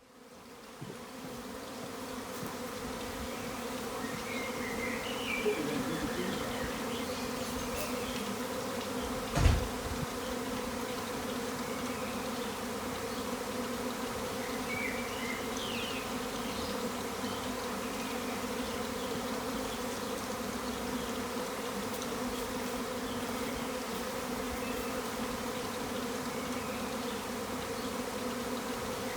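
A swarm of thousands of honey bees in flight: a loud, steady buzzing hum that fades up over the first few seconds. A single low thump comes about a third of the way through, and a few faint high chirps sound now and then.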